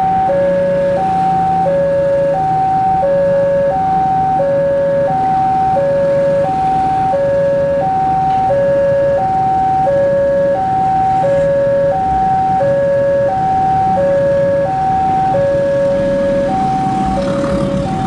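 Railway level-crossing warning alarm sounding: two electronic tones alternate high-low, over and over at a steady rate, signalling that a train is approaching.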